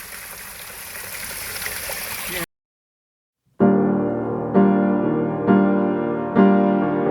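Rushing stream water, slowly growing louder, that cuts off suddenly about two and a half seconds in. After a second of silence, gentle piano music begins, with a new chord struck about once a second.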